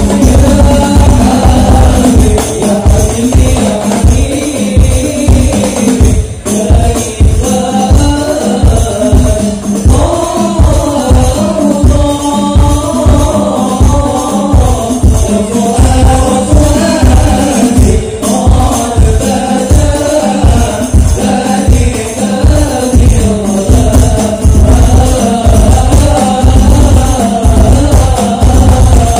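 Hadroh devotional music: several young men singing a sholawat melody together into microphones over a steady, fast beat of rebana frame drums.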